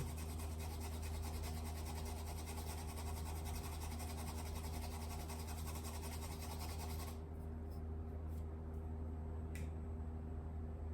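Fine steel wire brush scrubbing a small circuit board, a soft hiss that stops abruptly about seven seconds in, followed by a few light clicks. A steady low electrical hum runs underneath.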